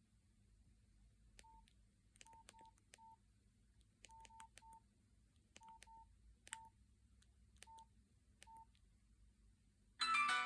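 Nokia 6136 mobile phone keypad: about a dozen faint button clicks, each with a short single-pitch key beep, pressed at an irregular pace. Near the end a loud polyphonic ringtone melody starts playing.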